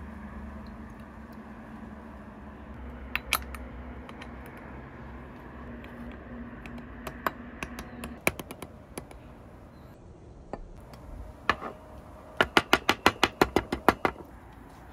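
Water running from a plastic bottle into a moka pot's lower chamber with a low steady tone and a few small clicks of handling. After it stops, the moka pot is banged rapidly on a wooden table, about a dozen sharp knocks in under two seconds, to settle the ground coffee in its filter basket.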